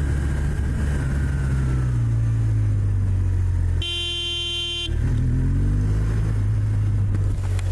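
Motor vehicle engine running steadily, with a horn sounding one blast of about a second near the middle.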